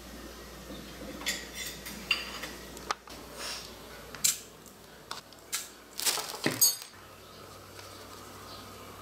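Clinks and rattles of seasonings and their containers against a stainless steel mixing bowl as salt is added, in a string of short sharp bursts that stop about seven seconds in.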